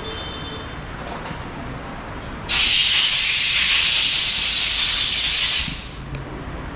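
A workshop compressed-air gun blowing a steady blast of air, about three seconds long, that starts and stops abruptly.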